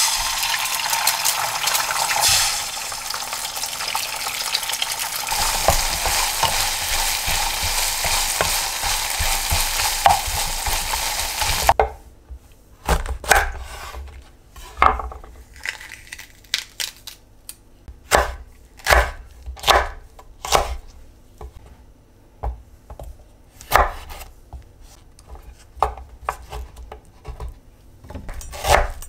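An egg fried in hot oil in a non-stick frying pan, sizzling steadily for about twelve seconds until it cuts off suddenly. Then a kitchen knife cuts bell peppers on a wooden cutting board in separate, irregularly spaced strokes, each knocking on the board.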